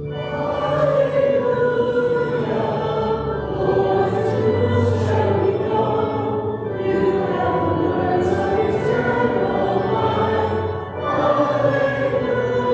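Congregation singing the sung Gospel acclamation with sustained keyboard accompaniment, a slow phrase-by-phrase sung response held on long notes.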